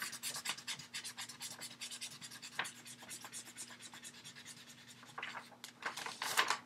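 Felt-tip marker scratching quickly back and forth on paper, coloring in, in rapid strokes several a second; a few louder scrapes and rustles near the end as the sheet is moved.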